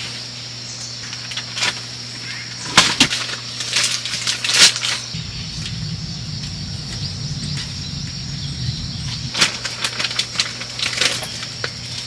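Rustling and crackling of something being handled, in sharp bursts about three and four and a half seconds in and again near the end, over a steady high chirring of night insects.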